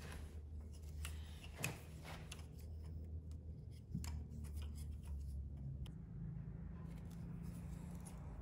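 Scattered small clicks and rubbing of plastic wiring connectors being handled as the throttle position sensor connector is unplugged by pressing its locking tab, over a low steady rumble.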